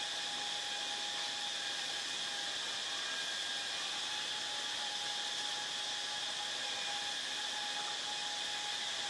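Cicadas buzzing: a steady, even high-pitched drone without pulses or breaks.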